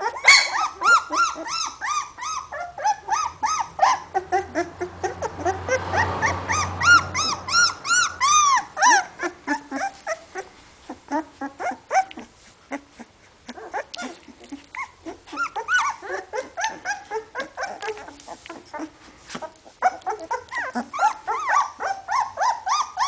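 Two-week-old hovawart puppies whimpering and squeaking: a rapid string of short, high cries that rise and fall in pitch. The crying is busiest for the first nine seconds and again near the end, with a sparser middle stretch of scattered cries and small clicks.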